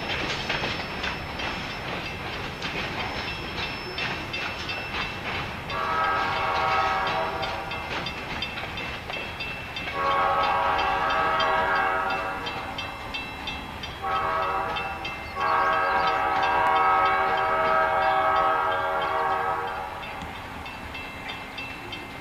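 Freight train rolling away over the rails with faint rhythmic wheel clicks, while the head-end EMD SD40-2 locomotive's multi-note air horn sounds about six seconds in: two long blasts, a short one and a final long one, the standard grade-crossing signal.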